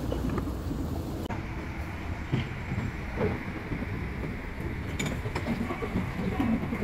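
High-speed rail station concourse ambience: a steady low rumble with scattered faint knocks and clicks.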